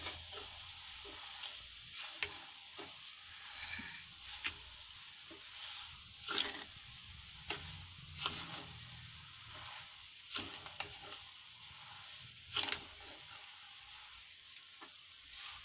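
A spatula stirring sugar into a moong dal halwa mixture in a pan: short scraping strokes against the pan every second or two, over a soft sizzle.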